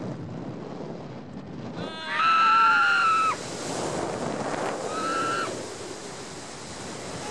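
A hang-glider passenger screaming during steep turns, over the rush of wind on the microphone: one long, loud, high-pitched scream about two seconds in, then a shorter one about five seconds in.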